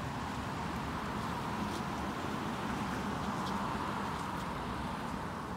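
Wind buffeting the microphone with a low, uneven rumble over steady outdoor noise, and a car driving past on the street.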